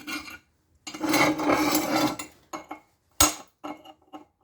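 Metal tools and parts being handled: a rasping scrape lasting about a second and a half, then two sharp metallic clicks.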